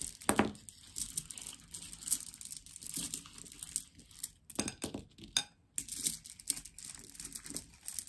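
Bag of glass craft gems crinkling and rustling as the stones are pulled out, with scattered light clicks.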